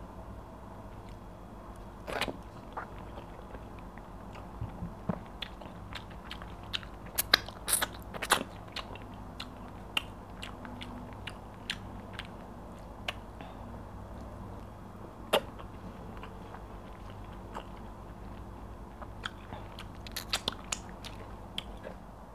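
Close-miked eating sounds of pounded yam and egusi soup taken by hand: irregular chewing smacks and mouth clicks over a steady low hum.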